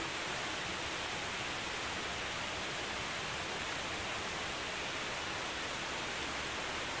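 Steady rain falling on grass and leaves, an even, unbroken hiss.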